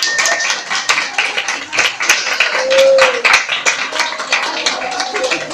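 Audience clapping irregularly, mixed with voices calling out and chattering.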